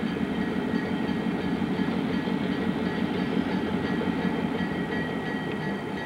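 MLW FPA-4 diesel cab locomotive running under power as it approaches with its passenger train: a steady engine rumble with a faint high steady tone above it, easing slightly near the end.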